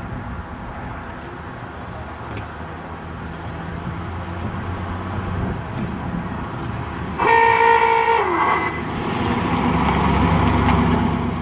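Vehicle noise running steadily, with a vehicle horn sounding once for about a second around seven seconds in, its pitch sagging as it stops. A vehicle's low running noise then grows louder near the end.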